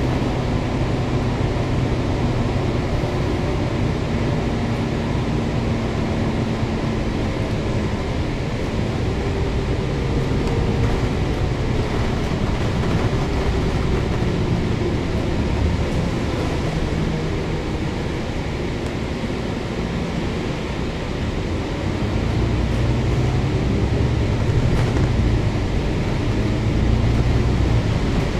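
Volvo B9TL double-decker bus cruising at speed, heard from inside: a steady drone from its six-cylinder diesel engine under tyre and wind noise, the engine note shifting a little in pitch and growing louder over the last few seconds.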